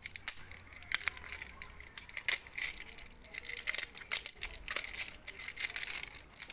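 Brake pads being handled: a run of light clicks and rattles with crinkly rustling.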